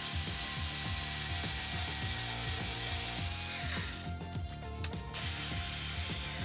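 Cordless screwdriver spinning a step drill bit to open up a screw hole in an RC motor's mounting plate. It winds down just before four seconds in and starts cutting again about a second later.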